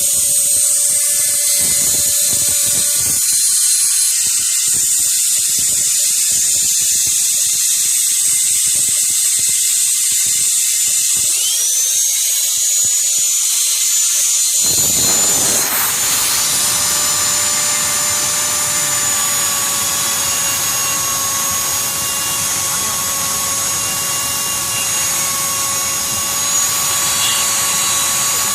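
Motors of a homemade three-axis CNC milling machine running with a high-pitched whine. About eleven seconds in a whine rises in pitch, and from about fifteen seconds a fuller, steady mechanical noise joins it.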